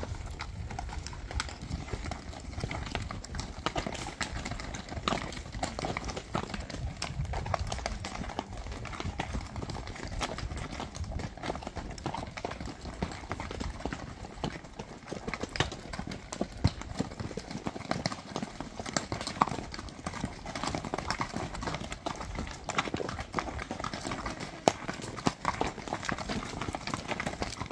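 Hooves of walking horses clopping on a stony dirt trail, an irregular run of hoof strikes one after another.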